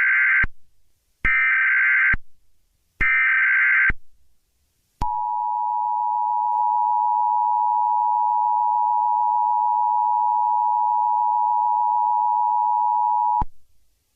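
Emergency Alert System tones: three short digital data bursts of the SAME header, each under a second and about a second apart (the first already under way), then the steady two-tone attention signal held for about eight seconds before it cuts off.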